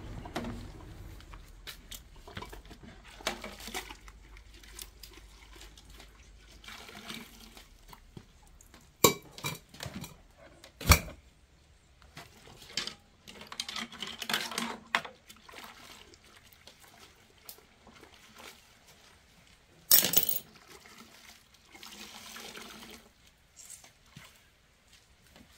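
Dishes and cutlery being washed by hand in a basin of water: scattered clinks and knocks, several sharp clatters, and short bouts of water sloshing.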